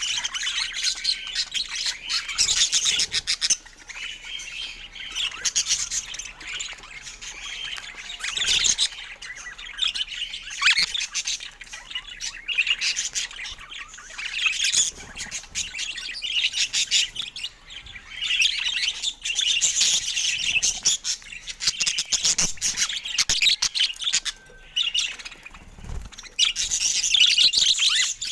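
Budgerigars chattering, a continuous stream of short, high chirps and squawks with a few brief lulls.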